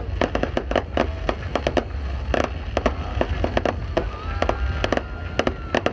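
Aerial fireworks display: a rapid, irregular string of bangs and crackling from bursting shells, several a second, with a thin whistle partway through.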